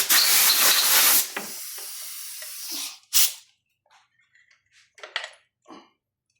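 Compressed air blown through a Mindray SV300 ventilator's internals to clear dust: several loud sharp blasts, then a steadier fainter hiss that stops about three seconds in, one more short blast, then a few faint handling clicks.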